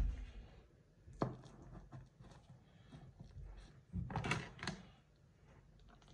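Faint clicks and knocks of a spatula being handled at a metal baking tray of lasagna as a piece is about to be lifted out, with a short cluster of clicks and scrapes about four seconds in.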